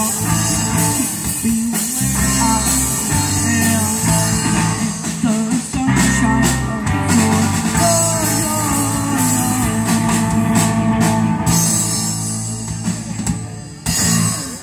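Rock band playing live through amplifiers: two electric guitars, an electric bass and a drum kit, with a voice singing at times. The song winds down and stops near the end.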